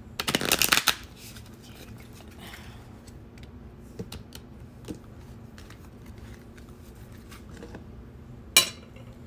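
A deck of Romance Angels oracle cards being shuffled: a quick burst of rapid flicking about half a second in, a couple of faint card clicks after that, and one short sharp card snap near the end.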